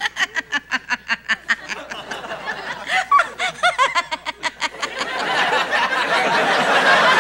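A woman laughing hard in rapid, evenly spaced bursts. From about five seconds in, a louder, denser wash of laughter from many people swells up.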